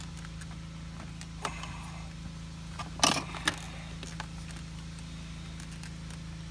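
Plastic dash trim clicking and rattling as it is pried and worked loose by hand, with a sharp cluster of clicks about three seconds in, over a steady low hum.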